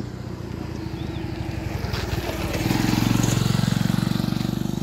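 Motorcycle engine passing close by, getting louder to a peak about three seconds in, then fading as it rides away.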